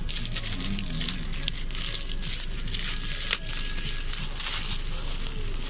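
Plastic courier mailer and its clear plastic wrapping crinkling and crackling irregularly as hands tug and tear at it to get it open.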